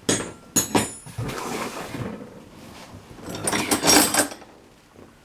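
Metal hand tools clinking and rattling as they are handled in a box. There are sharp clinks with a brief metallic ring in the first second, then shuffling, then a louder clatter about three and a half seconds in.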